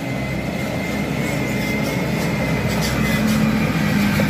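Concrete mixer truck's diesel engine running as the truck drives over a rough rubble road and passes close by, growing a little louder as it nears. A steady high whine runs along with the engine.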